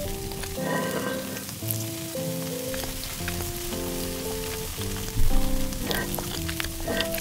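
Sizzling of fried rice on a hot cast-iron pot-lid griddle, coming in short bursts as a spoon scoops it up, over a light music melody. A single loud thump about five seconds in.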